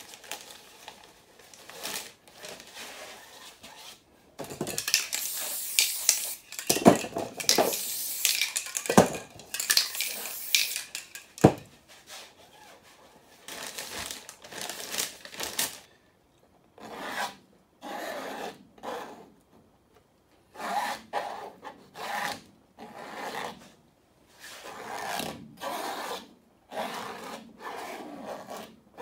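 Paper and a hand tool rubbed and scraped over the wet surface of a spray-paint painting. The first half is a louder, hissy stretch of rubbing with three sharp knocks. After that come separate short scraping strokes, each about a second long, with gaps between them.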